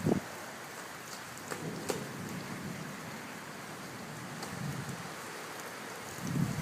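Steady hiss of light rain with a few faint drips. A splash sounds right at the start, and a run of splashing in a puddle begins near the end.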